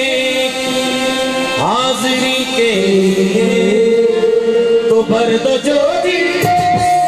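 Qawwali music: a male lead singer holding and bending long notes over steady harmonium notes.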